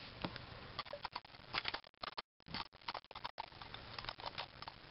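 Fishing lures being handled in a clear plastic tackle tray: irregular light clicks and rattles of metal hooks and blades against the plastic. The sound cuts out completely for a moment a little over two seconds in.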